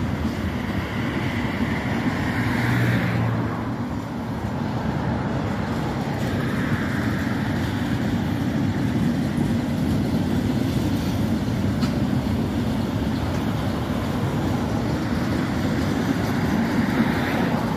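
Mixed freight train of tank cars and covered hoppers rolling past: the steady rumble of steel wheels on rail.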